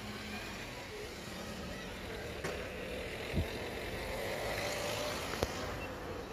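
Steady outdoor background noise with a few faint clicks and a low thump about three and a half seconds in.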